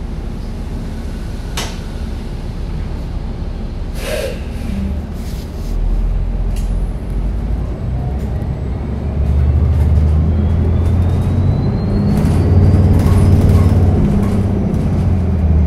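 Cabin sound of a New Flyer XDE40 diesel-electric hybrid bus underway: a steady low rumble from the Cummins B6.7 diesel and the road. Its hybrid electric drive whines, rising in pitch over about six seconds as the bus speeds up, while the rumble grows louder. A couple of short sharp rattles or hisses come in the first few seconds.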